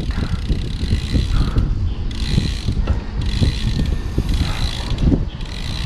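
Road bike freehub ratchet buzzing steadily as the rider coasts, over a low irregular rumble of wind and road noise on the microphone.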